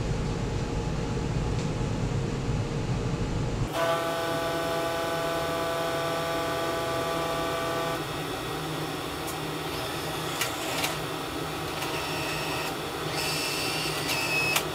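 Necta Krea Touch coffee machine running through its boot sequence after a software update. A steady hum changes a few seconds in to a droning multi-tone whine that lasts about four seconds, followed by a few soft clicks and a couple of short high beeps near the end.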